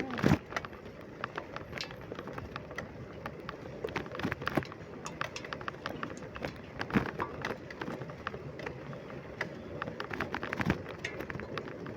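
Bicycle being ridden, its frame and parts rattling with many irregular clicks and knocks over a steady rush of road noise, with one heavy thump right at the start.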